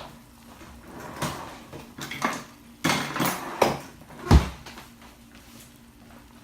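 A few separate knocks and clunks of kitchen handling, the loudest a single low thump a little over four seconds in, then quieter.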